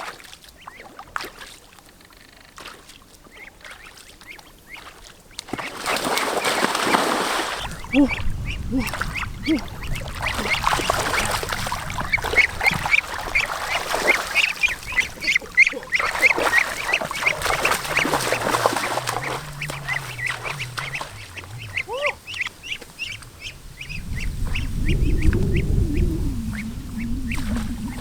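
Ducks quacking, a dense run of short repeated calls, with bursts of noise around them and a low rumble near the end.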